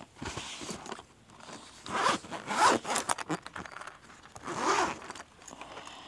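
A zipper being pulled in several strokes, the two longest about two seconds in and near five seconds in.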